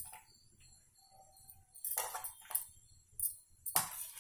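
A spoon clinking and scraping on a stainless steel plate while mashed roasted brinjal is scooped off it into a bowl of curd: a few sharp clinks, most of them in the second half.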